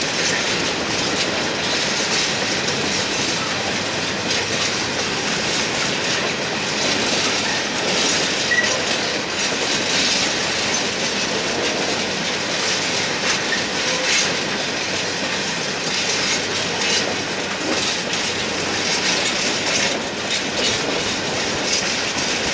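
An empty coal train's hopper wagons rolling past on a curve: steady wheel-on-rail noise with clickety-clack over the rail joints and some high wheel squeal.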